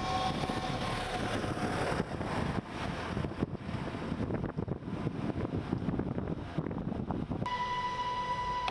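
Wildfire burning in wind: a steady rushing noise with irregular crackling. Near the end a steady high tone starts and holds.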